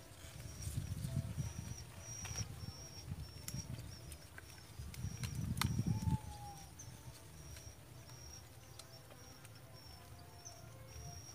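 Outdoor pondside ambience: a thin, high chirping from insects or birds runs in broken stretches throughout. Low rumbling gusts of wind on the microphone come about half a second in and again, louder, around five to six seconds, with a few faint clicks.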